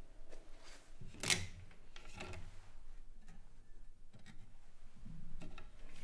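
A few knocks and scrapes from a wooden aquatint resin-dust box as its flap is opened and the etching plate inside is handled. The sharpest knock comes about a second in.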